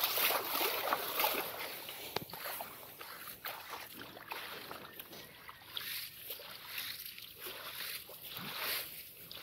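Hands and legs splashing and sloshing in shallow muddy water in irregular small splashes, busier and louder in the first couple of seconds.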